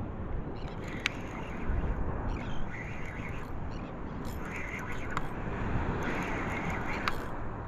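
Wind buffeting the microphone over open water, with patches of splashing and a few sharp clicks.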